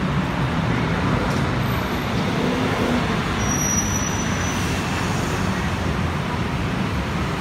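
Steady city road traffic, a continuous rumble of passing cars and buses, with a faint brief high whistle about three and a half seconds in.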